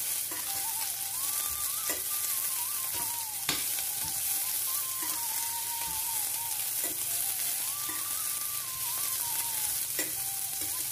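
Sliced onions frying in hot mustard oil in a stainless steel pan, sizzling steadily as a metal spatula stirs and scrapes them, knocking against the pan a few times.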